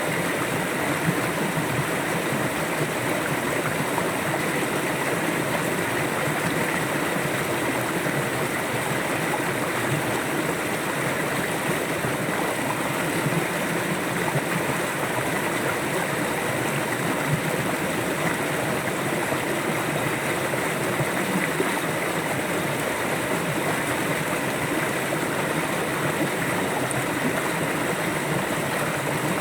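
A river flowing steadily, water rushing and gurgling over a rocky bed.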